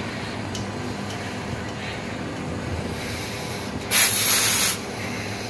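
R134a refrigerant gas hissing out of a loosened charging-hose fitting for just under a second, about four seconds in: the hose is being purged of air before the refrigeration system is charged.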